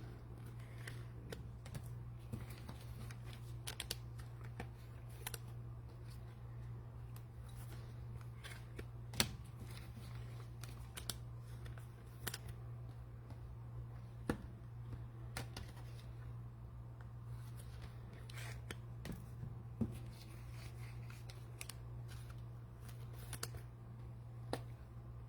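Trading cards and plastic pack wrappers being handled: scattered soft clicks and rustles with a few sharper clicks, over a steady low electrical hum.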